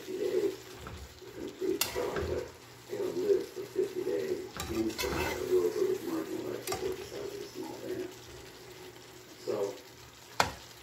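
Saucy meat and vegetable chunks sizzling in a pan as a spatula stirs them, with several sharp clicks of the spatula against the pan.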